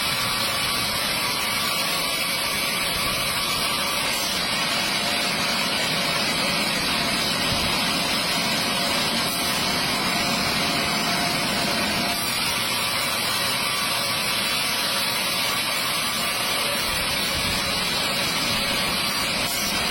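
Stihl chainsaw running steadily, cutting through a large log in a chainsaw mill. The engine note and the hiss of the chain in the wood stay even.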